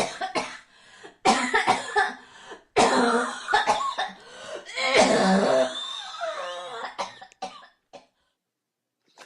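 A person coughing in a series of long, loud coughing fits, each made of several rapid coughs. The coughing trails off into a few short coughs and stops about eight seconds in.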